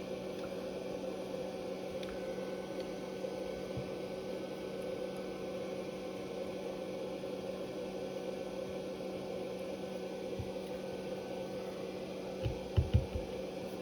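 Steady electrical hum with a fan-like hiss, with a few soft low knocks near the end.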